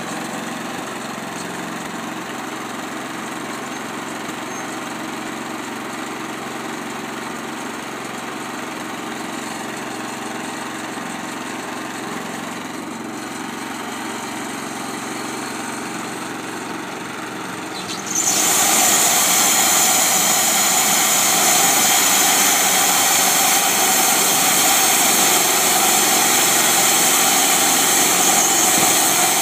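Homemade bandsaw mill with its small engine running steadily as it saws a log. About two-thirds of the way through, the sound suddenly gets much louder and brighter, with a strong high hiss of the blade in the wood, as the saw head comes closer along the cut.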